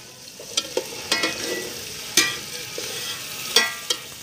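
Metal spoon stirring in a steel cooking pot, striking and scraping its side in several sharp, ringing clinks at irregular intervals, over the steady sizzle of garlic and whole spices frying in oil.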